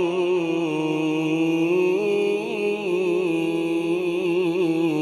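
Male Quran reciter (qari) chanting melodic tilawat, holding one long drawn-out note without a break, with wavering ornaments about halfway through and again near the end.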